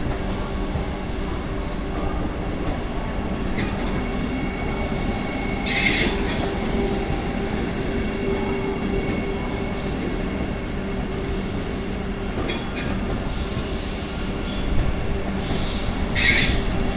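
Vande Bharat Express electric train set rolling past along a station platform: steady running noise with an even electric hum. Short high-pitched squeals come every few seconds, the loudest about six seconds in and again near the end.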